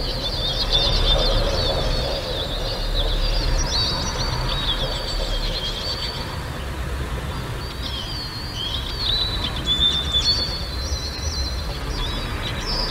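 Birds chirping and twittering in quick, overlapping runs of high notes, over a steady low rumble.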